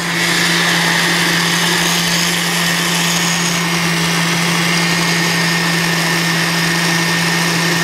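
Electric blender motor running steadily at full speed, blending a lemon-and-mint lemonade, with a steady hum and a high whirr.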